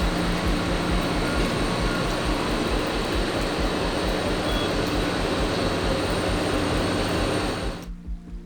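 Steady roar of jet airliner engines on a wet runway, with a regular music beat underneath. The engine noise cuts off abruptly near the end, leaving only the background music.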